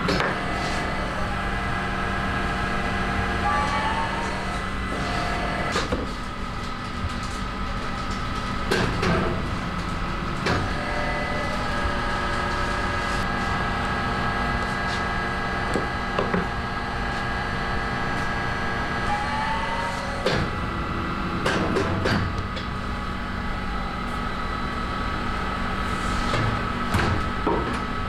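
Baumkuchen spit oven running: a steady machine hum with a short rising whine twice, about four seconds in and again about twenty seconds in, and scattered metal clicks and knocks.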